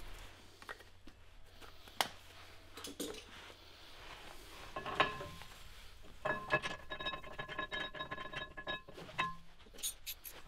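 Light metal clinks and taps as the brake mounting bracket bolts are handled and threaded in by hand, with a sharper ringing clink about five seconds in. Faint background music comes in about six seconds in.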